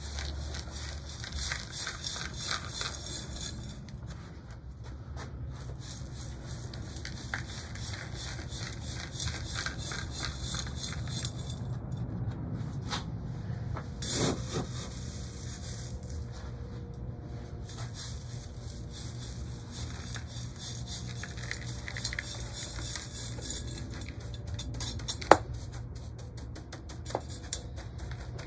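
Soil being scooped and poured into a bonsai pot around a sapling's roots: gritty scraping, crackling and rattling, with one sharp knock near the end.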